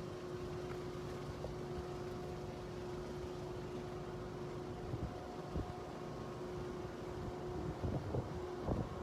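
Strong wind buffeting the microphone, a low rumble with a few harder gusts about five seconds in and near the end, over a steady low hum.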